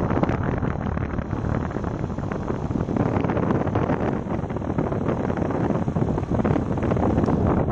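Midea air conditioner running with a loud, steady, rough rushing noise and constant crackle: the excessive operating noise the owner warns buyers about.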